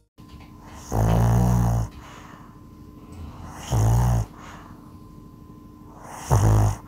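A small dog snoring in its sleep, three loud snores about two and a half seconds apart, the first the longest.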